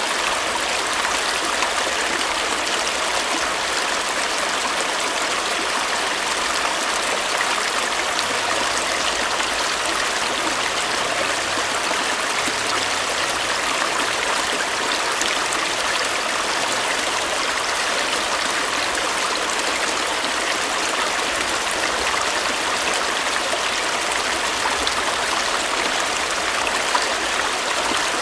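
A stream of water running over rocks, a steady rushing and bubbling with no pauses or changes.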